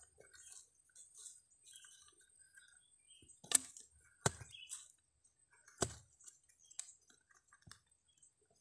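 A long knife blade chopping and scraping into soft clay soil around a shrub's roots: soil crumbling and scratching, with three sharp strikes in the middle and a couple of lighter knocks after.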